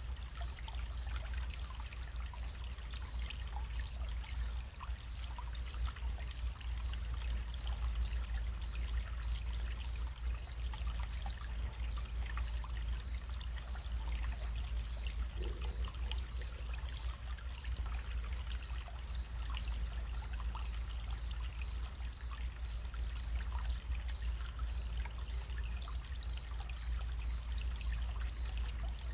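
Small running stream trickling and splashing steadily, with many small droplet-like ticks over a constant low rumble.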